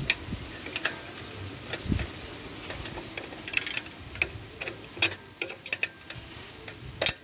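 Small wrench clicking and scraping on a 12 mm bolt as it is worked loose on a power weeder's gearbox case: irregular metal clicks, the loudest near the end. The bolt is the oil drain bolt being loosened to let the gear oil out.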